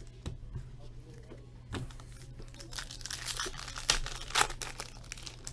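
Foil wrapper of a hockey card pack being torn open and crinkled, loudest from about three to four and a half seconds in, with two sharp peaks near the end. Before it, a few light clicks as cards are handled.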